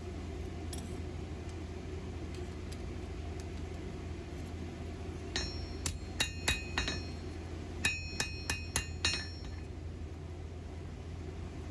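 Blacksmith's hammer striking high carbon steel on an anvil: two runs of about five quick ringing blows, starting about five seconds in and again about eight seconds in, over a steady low hum.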